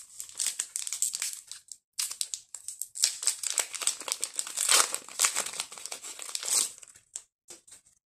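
Foil wrapper of a Pokémon booster pack crinkling in quick, irregular crackles as the pack is handled and torn open, with a short pause about two seconds in.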